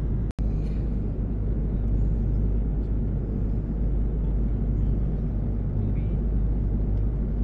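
Steady low rumble of a jet airliner's cabin in flight: engine and airflow noise. The sound cuts out for an instant near the start.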